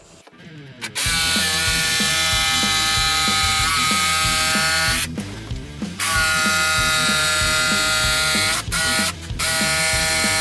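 Makita 18V cordless jigsaw cutting through a fibreboard panel, a steady motor whine over the rapid chatter of the blade. It starts about a second in, stops for about a second midway, then restarts, with two short breaks near the end.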